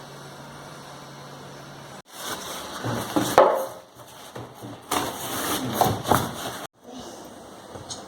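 Irregular knocks and rustling of packaging being handled, in two short spells, over a low steady hum.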